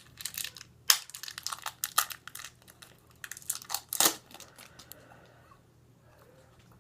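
Irregular crinkling and crunching with a few sharp clicks, from a Flip Phone Pop candy being handled and tasted. It dies down after about four seconds.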